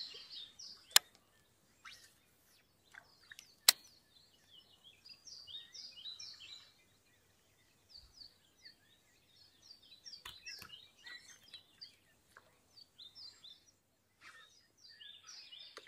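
Small songbirds chirping and singing in short repeated phrases, with two sharp clicks, one about a second in and another a few seconds later.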